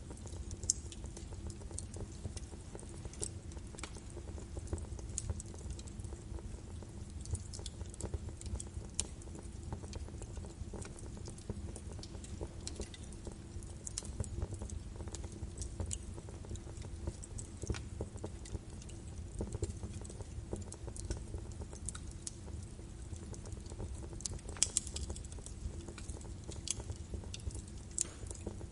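Birch wood fire burning in a fireplace, crackling with frequent irregular pops and snaps over a steady low rumble of the flames.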